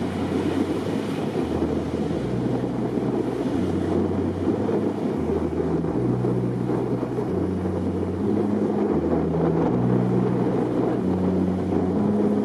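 Electronic dance music: held synth bass notes that step to a new pitch about once a second, under a rushing noise swell that builds slowly louder.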